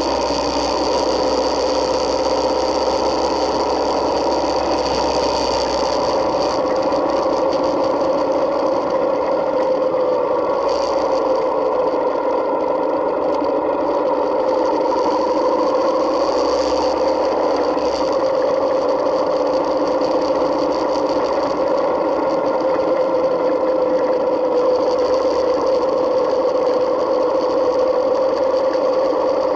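Yamaha Midnight Star 1900's V-twin engine running steadily under way, its pitch drifting slowly up and down with the throttle through the bends.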